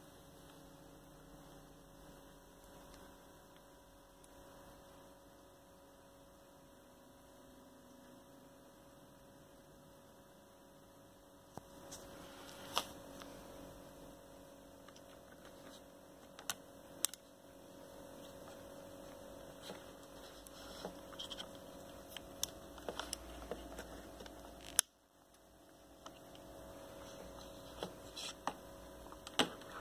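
Faint steady electrical hum. From about twelve seconds in, scattered sharp clicks and taps as a handheld device in its dock is handled, with one louder click near twenty-five seconds.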